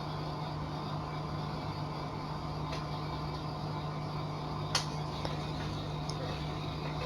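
Steady low hum with a few faint clicks of a printer casing being handled, and one sharper click about two-thirds of the way through.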